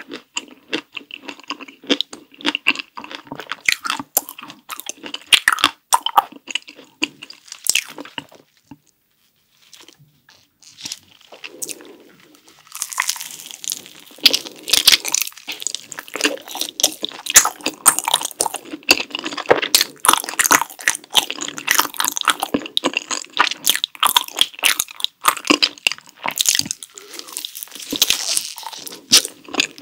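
Close-miked chewing and biting of soft rice cakes, dense with sharp wet mouth clicks. The sound stops for a few seconds about eight seconds in. It resumes as a pink strawberry milk cream rice cake is bitten into and chewed.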